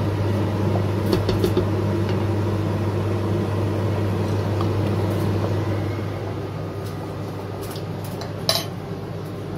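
Wooden spoon stirring thick risotto in a stainless steel pot, with light clinks and scrapes against the pot, over a steady low hum. A single sharp knock comes near the end.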